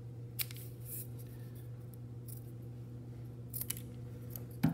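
Steel scissors cutting through a thin strip of corrugated cardboard: a few separate sharp snips, one soon after the start and two near the end.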